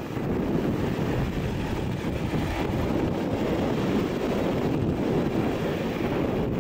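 Boeing 787-8 Dreamliner's twin turbofan engines running steadily at taxi power as the airliner turns onto the runway, with wind rumbling on the microphone.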